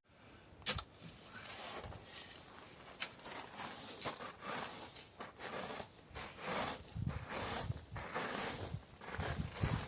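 Gusty wind hissing and rustling in swells that rise and fade, with one sharp knock about a second in.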